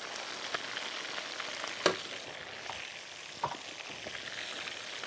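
Minced meat and coloured bell peppers sizzling as they fry in a pan while being stirred, with three sharp clacks of the spoon against the pan, the loudest about two seconds in. The meat filling is close to done.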